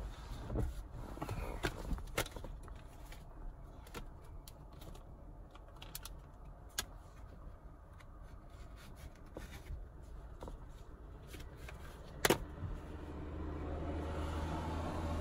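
Plastic compact discs being slid into the elastic slots of a fabric sun-visor CD holder: scattered light clicks and scrapes, with one sharp knock a little after twelve seconds in. A low rumble swells near the end.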